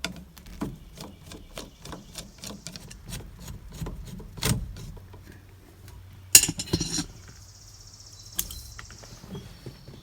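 Hand work on a steering wheel hub's fastening screws: a run of small metallic clicks and clinks from a tool and loose metal parts, with a louder clatter about six seconds in. A brief high-pitched whirr follows about seven seconds in.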